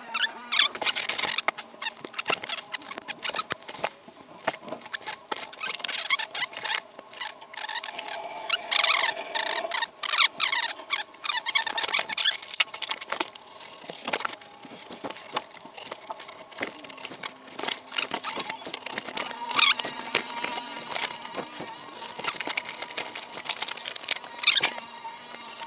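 Cardboard being folded, creased and handled on a wooden workbench: a run of short, irregular scrapes, rubs and taps throughout.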